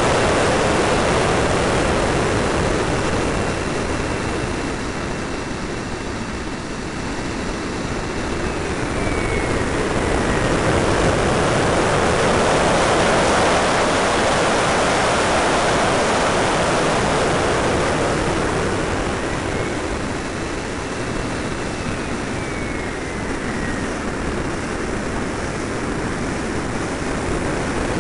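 Radio-controlled F-86 Sabre model jet in flight, heard from a camera on its canopy: a steady rush of airflow and motor noise that swells and fades as it manoeuvres, with a faint high whine that twice drops in pitch.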